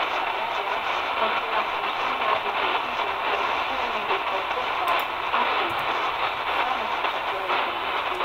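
Tecsun PL-330 shortwave radio playing a weak, distant AM broadcast: a faint signal buried in steady hiss and static, with the sound cut off above the upper treble like a narrow radio channel.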